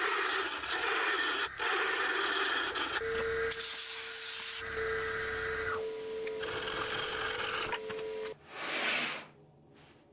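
Wood being sanded: a continuous rasping rub with a few knocks. A steady machine tone joins about three seconds in. The sanding ends with one last short burst about a second before the end, and only faint room tone follows.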